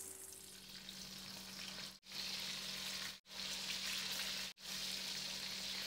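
Salted Spanish mackerel pieces sizzling as they shallow-fry in hot oil in a wok, a steady crackling hiss. It cuts out briefly three times.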